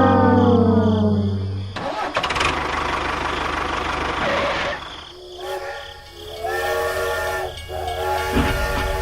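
A falling horn-like slide, then a burst of hiss lasting a few seconds, then a steady whistle-like horn sounding in several blasts with short breaks.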